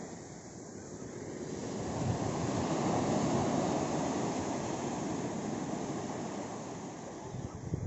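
Small surf breaking and washing up a sandy beach, the foam hissing over the sand. The wash swells over the first two or three seconds, then slowly eases as it draws back.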